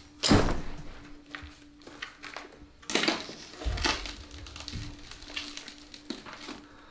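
A bag dropped onto a hard floor: one loud thud with a clatter about a third of a second in, then more knocks, a heavy thump and rustling as a person moves about and picks himself up. A faint steady low hum runs underneath.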